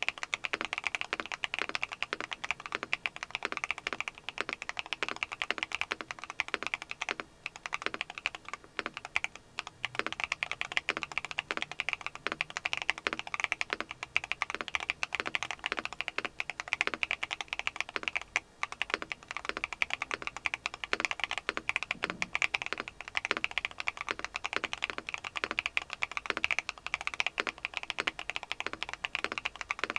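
Mechanical keyboard with factory-lubed Akko Stellar Rose linear switches being typed on quickly and continuously, a dense stream of key clacks with a few short pauses. The switches give a muted bottom-out and a bright top-out, a crisp typing sound.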